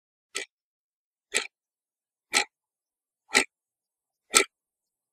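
Clock ticking once a second: five crisp ticks, each a little louder than the last.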